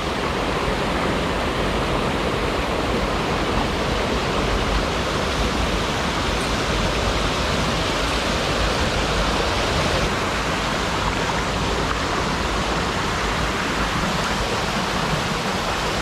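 Mountain stream cascading over boulders in small waterfalls close by: a steady, unbroken rush of water.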